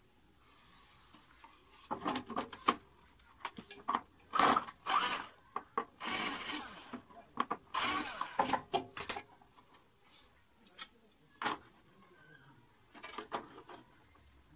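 A cordless drill driving a screw into a small wooden strip in short bursts, mixed with wooden pieces knocking and rubbing on a plywood board. The sound is busiest between about two and nine seconds in. It thins to a few separate taps after that.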